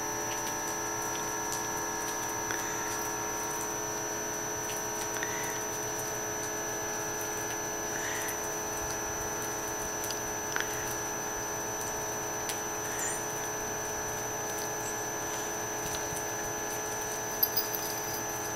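A steady electrical hum made of several fixed tones, with a few faint short rising chirps and, near the end, a couple of sharp clicks.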